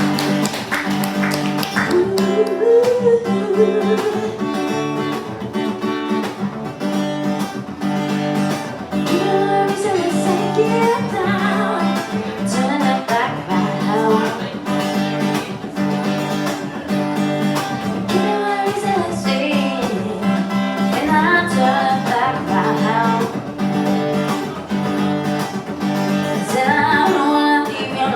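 A live song performance: acoustic guitar strumming steady chords while a singer sings a melody over it.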